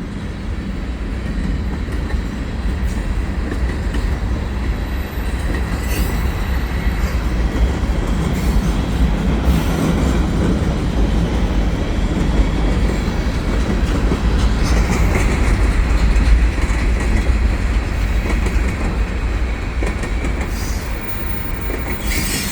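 Freight cars rolling past on a curve: a steady heavy rumble of steel wheels on rail, with clickety-clack, a few sharp knocks and a faint high wheel squeal.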